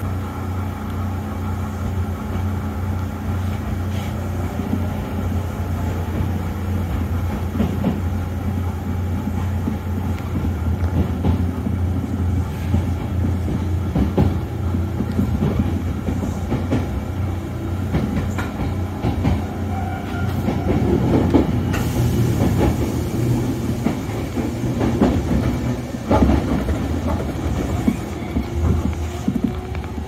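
Kintetsu electric commuter train running, heard from inside the passenger car: a steady low rumble and hum from wheels and motors, with scattered clicks and knocks from the track. Near the end a motor whine rises in pitch.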